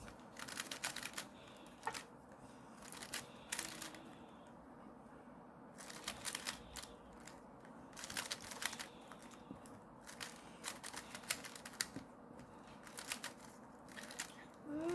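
Clicking of a magnetic Rubik's cube as its layers are twisted quickly during a solve: bursts of rapid clicks with short pauses between them.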